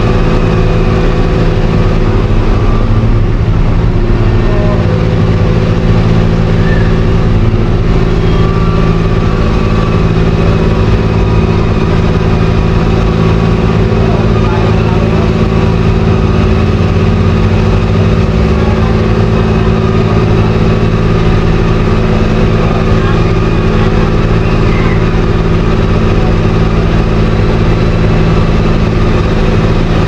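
Heavy engine running steadily at one even pitch, with no revving or breaks.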